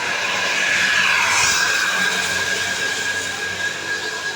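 A large tour bus passing close: a rushing vehicle noise that swells to a peak about a second in and then slowly fades, with a steady high-pitched tone held throughout.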